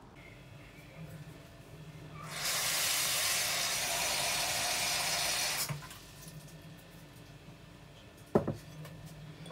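Kitchen tap running for about three seconds, filling a bowl with water; near the end, a single sharp knock as a glass bowl is set down on a wooden chopping board.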